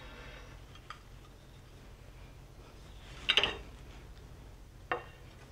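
A kitchen knife and ceramic dinner plate clinking: a faint tick about a second in, a sharp ringing clink about three seconds in, and a smaller clink near the end.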